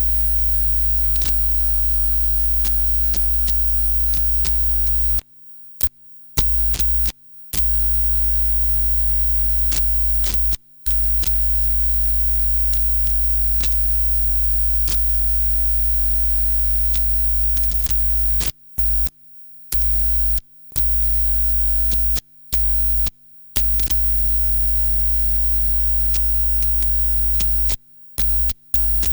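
Loud mains hum and buzz from a bad audio cable connection, with scattered crackles. It cuts out to silence abruptly about ten times, for a fraction of a second each, as the contact breaks and comes back.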